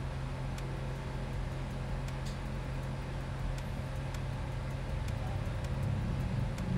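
Steady low hum of pool-hall room noise, with a few faint, sharp clicks scattered through it.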